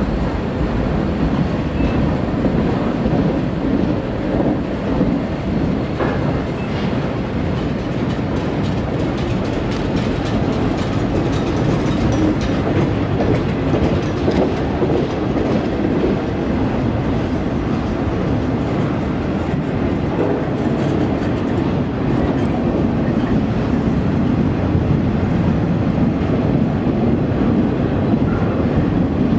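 Flatcars of a slow-moving freight train rolling past, steel wheels running on the rails in a steady, continuous noise with faint scattered clicks.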